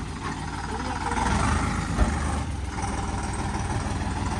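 Diesel engine of an Eicher 368 tractor running steadily, with a single thump about halfway through.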